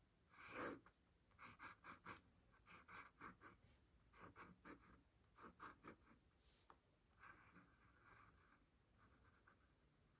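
Faint scratching of a pen nib on sketchbook paper as small flowers are inked in quick little strokes that come in clusters. One louder scrape comes about half a second in, and the strokes turn softer and longer near the end.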